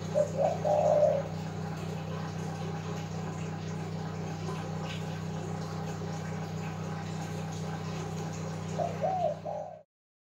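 A dove cooing, one short phrase about a second in and another near the end, over a steady low hum. The sound cuts off suddenly just before the end.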